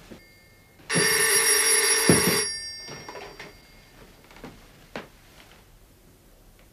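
Telephone bell ringing in one burst of a little over a second, starting about a second in. It is cut off with a clunk as the receiver is lifted.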